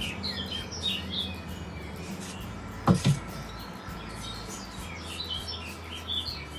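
Small birds chirping in short bursts, with one dull thump a little before the middle.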